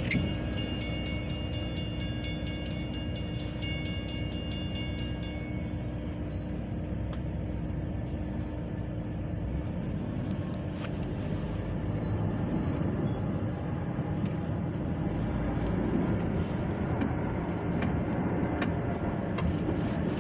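Metra commuter train rolling past with a steady low rumble. A high steady whine sounds over it for the first five seconds or so, then stops. Scattered light clicks follow near the end.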